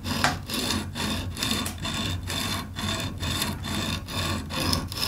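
Lansky extra-coarse hone rasping back and forth along a steel filleting knife's edge in a steady rhythm of about two to three strokes a second. The stone is cutting the bevel to leave continuous scratch marks along the blade, the first grit used to raise a burr.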